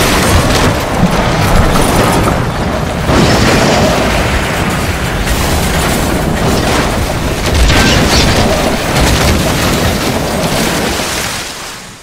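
Train crash sound effect: a loud, continuous crashing rumble with heavy impacts about three and seven and a half seconds in, dying away near the end.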